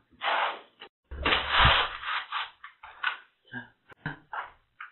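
A person moving about and handling things on a tiled floor in slippers: a run of short rustling, scraping bursts, the longest and loudest lasting about a second from about a second in.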